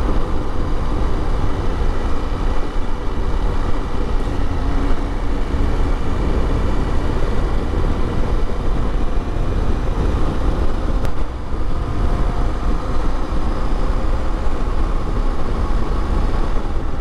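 KTM 890 Adventure parallel-twin motorcycle cruising at road speed, its steady engine drone under heavy wind buffeting on the microphone.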